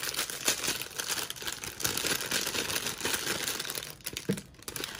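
Clear plastic packaging crinkling and rustling as it is handled, a dense crackle of small crackles that eases for a moment about four seconds in.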